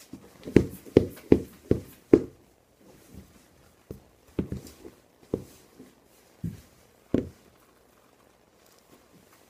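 Footsteps of thick rubber platform-soled creepers on a tile floor. Five quick steps come in the first two seconds, then slower, scattered steps.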